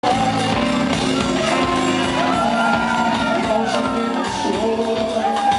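A live New Orleans jazz band playing, with electric bass and drum kit under held melody lines, and voices shouting and singing over the band.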